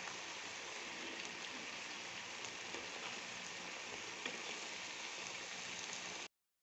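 Mixed vegetables sizzling in sauce in a frying pan as they are stirred with a wooden spatula: a steady hiss with small crackles, cutting off abruptly near the end.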